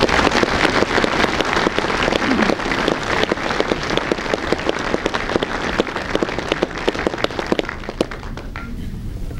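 Audience applauding: a dense patter of many hands clapping that dies down over the last second or so.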